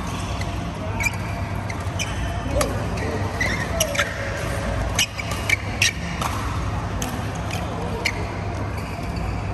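Badminton rackets striking shuttlecocks, a sharp click every second or so from this and nearby courts, with brief squeaks of shoes on the court mat. A steady low hum runs underneath.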